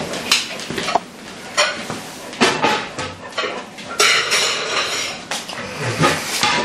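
A Clumber spaniel moving about on a hardwood floor: irregular sharp clicks and clinks, with a denser, noisier stretch about four seconds in.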